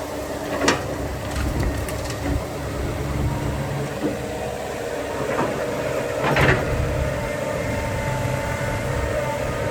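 Heavy diesel engines of dump trucks and an excavator running steadily, with a sharp knock about a second in and a louder clank a little after six seconds.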